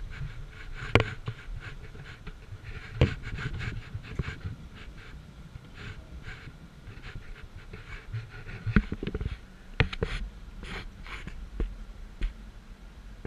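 Vehicle driving slowly over a rough, narrow sandy trail: a low rumble with irregular knocks, rattles and scrapes as the body bumps through ruts and brushes past bushes, the loudest jolts about a second in, about three seconds in, and twice near nine to ten seconds.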